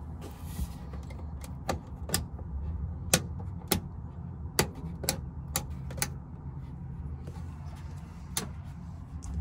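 Rocker switches on a camper's control panel being pressed, about ten sharp clicks at uneven intervals, the last one well apart from the rest. Under them runs a steady low engine rumble.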